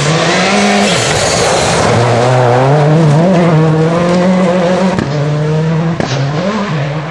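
Peugeot 206 WRC rally car driven hard through a corner, its engine at high revs, the pitch climbing and dropping several times with throttle and gear changes, over the hiss of tyres sliding on loose gravel. Two sharp cracks ring out about five and six seconds in.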